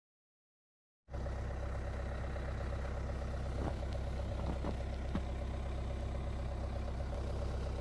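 Car engine idling steadily, cutting in suddenly about a second in after silence, with a few faint clicks over the hum.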